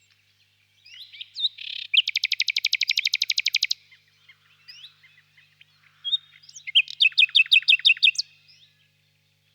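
Nightingale singing: soft whistled notes, then a fast rattling trill of rapidly repeated notes for nearly two seconds, and later a slower run of about ten loud, sharp repeated notes.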